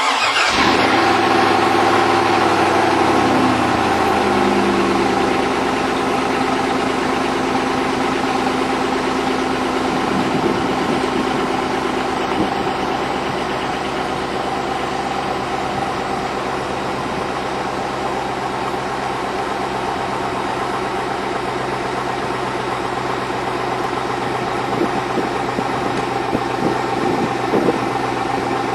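Chevrolet Vortec 5.3 V8 just after a cold start: the revs fall over the first few seconds as the fast idle settles, then it idles steadily. A rapid knocking runs under the idle, which the owner takes for piston slap on cold start.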